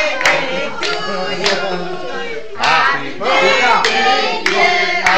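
A group of adults and children singing a birthday song together while clapping in time, with about one and a half to two claps a second.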